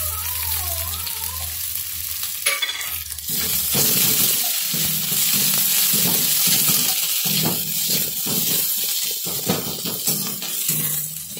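Sliced onions frying in hot oil in a kadhai with a steady sizzle, while a steel spatula stirs and scrapes them against the pan. The sizzle grows louder about three seconds in as the onions are spread through the oil.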